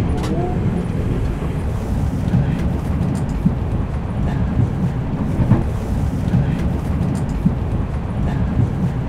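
Steady low rumble of a train running, heard from inside a passenger carriage, with a few faint clicks and rattles.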